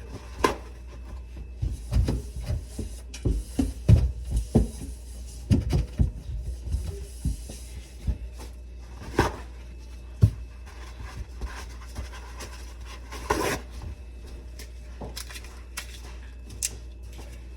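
Scattered knocks, clicks and scrapes of objects being handled, with a faint hiss in the first few seconds.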